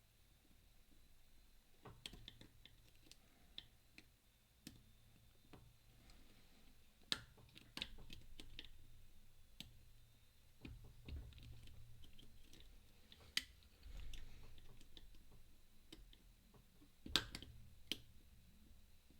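Faint, irregular small metallic clicks and ticks of a pick and tensioner working the discs of a flat pagoda disc padlock, with a few sharper clicks now and then.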